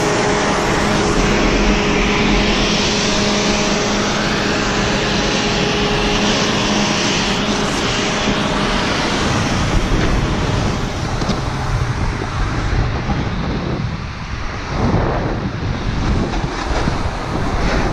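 Steady rush of wind over the camera microphone with a snowboard scraping over snow during a run, and a steady hum underneath for the first half.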